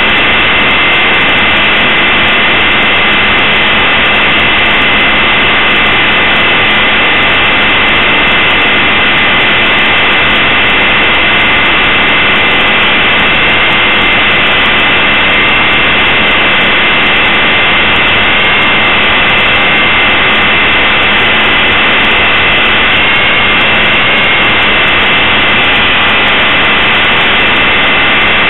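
Blade 450 3D RC helicopter heard from a camera mounted on it: its electric motor and drive gearing give a loud, steady high whine over the rushing of the rotor blades. The pitch wavers briefly about 23 seconds in.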